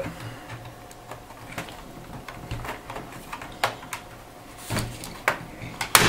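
Scattered light plastic clicks and taps, about one a second: fingers and a fingernail working at the edge of a Dell Inspiron 15R laptop's plastic palm rest to free the clips that hold it.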